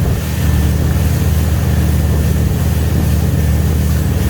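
Wakesurf boat's engine running steadily: a low, even drone.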